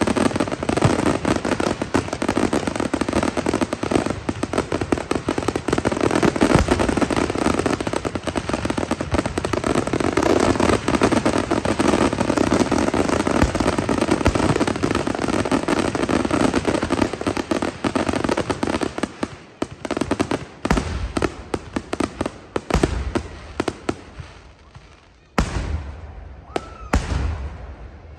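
Fireworks finale: a dense, unbroken barrage of bursting shells and crackle that thins after about nineteen seconds into scattered single bangs, with a last few loud bangs near the end.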